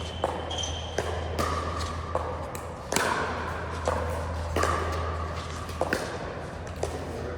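Pickleball being played: paddles and the plastic ball give a string of sharp pops, about one every half second to second, each with a short ringing tone. A steady low hum runs underneath.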